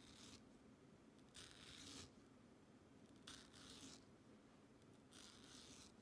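Knife blade drawn through the flesh of a ripe mango half, scoring it in a grid: faint soft slicing strokes, about one every two seconds.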